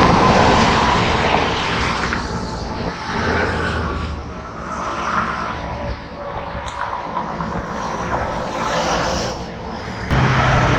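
Road traffic passing close by: vehicle engines and tyre noise in a steady rush. It is loudest at the start, fades through the middle and swells again near the end as another vehicle approaches.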